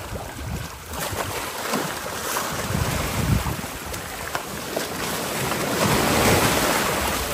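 Shallow surf washing and breaking on a beach, with wind buffeting the microphone. Near the end the water splashes harder as a sand tiger shark thrashes in the wash.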